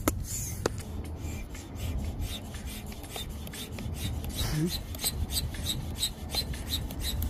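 Stand-up hand air pump being worked up and down to inflate an inflatable boat tube, in a quick, even rhythm of strokes. The tube is still building pressure toward 15 PSI.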